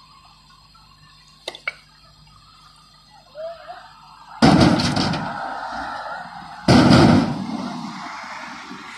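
Two loud crashes of rock about two seconds apart, each a short clattering burst that dies away, over a faint steady engine hum. Two light clicks come near the start.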